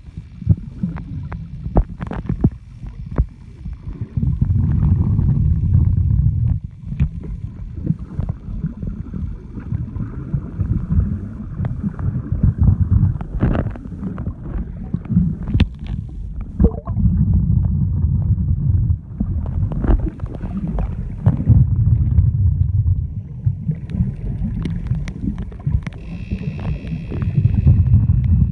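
Muffled underwater sound picked up through a submerged camera: a low rumble of moving water that swells and fades every few seconds, with scattered clicks and knocks.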